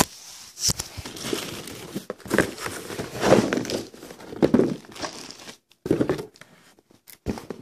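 Plastic wrapping crinkling and a cardboard box rustling in irregular bursts as a boxed canister filter is worked out of its packaging.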